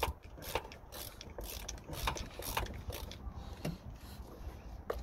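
A ratchet clicking in short runs as a Torx T25 screw on the air filter housing lid is tightened, only snugged up rather than made really tight.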